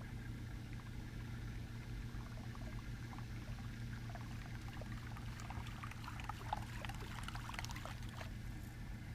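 Small splashes and trickling water from about four seconds in until near the end, over a steady low hum.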